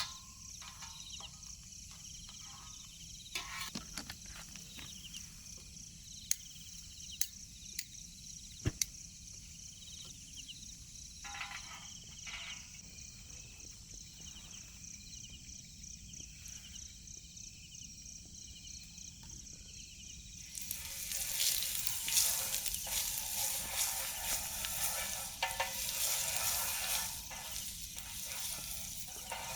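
Food sizzling in hot oil in a pan. The sizzle starts suddenly about two-thirds of the way in, after a few light clicks.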